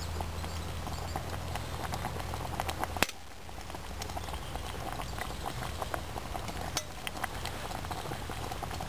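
Soup simmering in a stainless steel billy can over a Trangia spirit burner turned down with its simmer ring: a steady bubbling with many small pops. There is one sharp knock about three seconds in.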